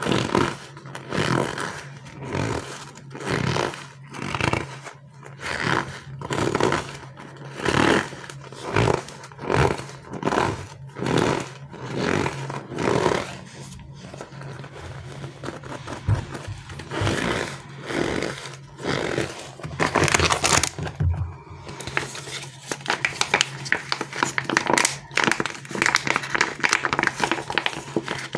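A soft squishy stress toy squeezed by hand over and over, about once a second, each squeeze a short rush of squelching noise. Later the squeezing turns irregular, and for the last several seconds there is dense, fast crinkling like plastic packaging being handled.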